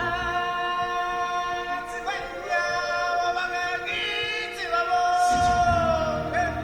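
Show music with long held, chant-like sung notes by singers, the melody sliding between pitches. A low accompaniment comes in about five seconds in.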